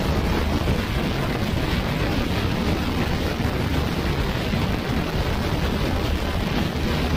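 Steady wind rush buffeting the microphone over the running noise of a Yamaha NMAX scooter cruising on the road.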